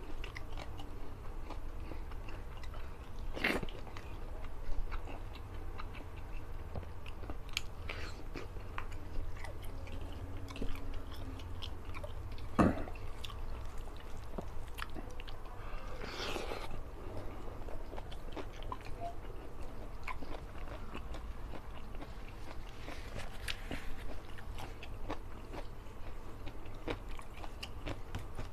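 Close-miked chewing and wet mouth sounds of a man eating rice and fish-head curry by hand, with scattered sharp clicks and smacks, the loudest about twelve seconds in, over a steady low hum.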